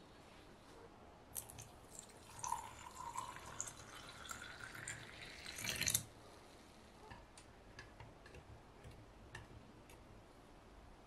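Water poured into a brass cezve over ground date seed powder, its pitch rising as the pot fills, the pour ending about six seconds in. Then a few light clinks of a spoon stirring against the metal pot.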